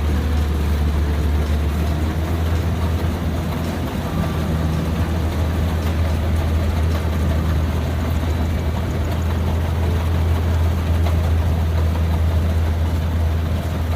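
Kubota DC60 combine harvester's diesel engine running steadily at close range, a loud, low, unbroken drone.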